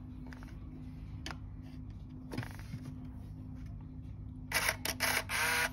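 Canon Autoboy WT28 compact camera going off at the end of its self-timer countdown: about four and a half seconds in, the shutter releases and the camera's motor whirs briefly for about a second, over a faint steady low hum.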